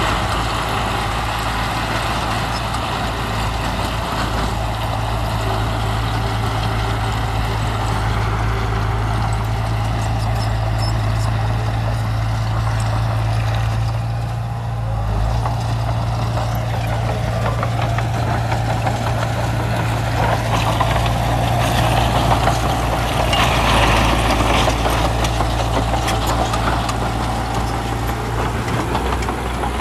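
Heavy diesel engine of earthmoving machinery running steadily, growing a little louder about two-thirds of the way through.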